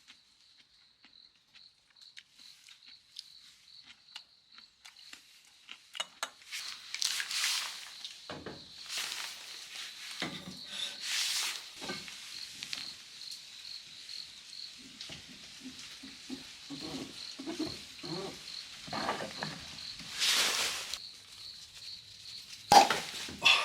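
An insect chirping in a steady high-pitched pulse, about three times a second, in a forest setting. Over it come rustling and handling noises, with louder bursts about seven, eleven and twenty seconds in, and a sharp knock near the end.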